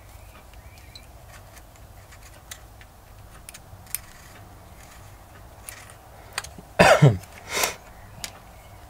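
Light clicks and taps of small hand tools and metal parts being handled on a workbench, then two short, louder sounds about seven seconds in.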